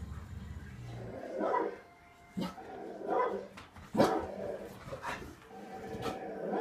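Guard-dog bark and growl sound effect played from a television: a low rumble in the first second, then a series of about six barks, the loudest about four seconds in.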